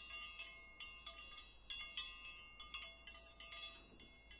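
A quick run of bright, high chime strikes, about three a second, each ringing briefly: a twinkling chime effect.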